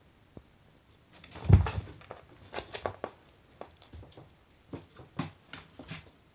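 A kitten scuffling on a vinyl floor as it pounces on and wrestles a plush toy: a heavy thump about a second and a half in, then a scattered run of light taps, scratches and scrapes.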